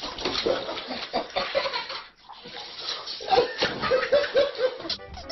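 People laughing, with bits of talk, broken by a short pause about two seconds in.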